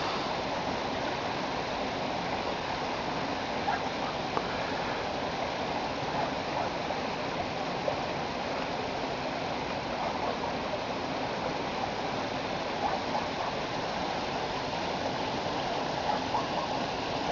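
Stream water running steadily through and over a beaver dam of ice-coated sticks, an even, unbroken noise.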